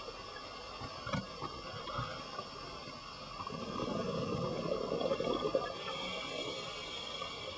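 Underwater sound of a scuba diver's regulator: a bubbling rush of exhaled air from about three and a half to six seconds in, after a couple of short knocks.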